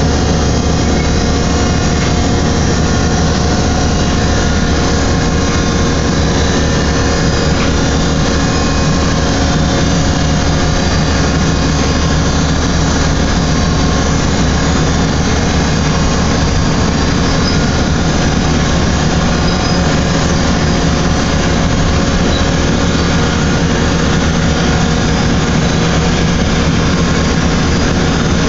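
Large industrial dumper's machinery running: a loud, steady mechanical drone with several constant hum tones and no change in pace or pitch.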